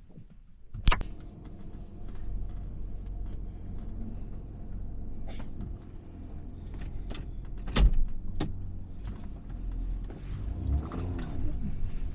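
Car driving, heard from inside the cabin: a steady low engine and road rumble, with a sharp click about a second in and a heavier thump about eight seconds in.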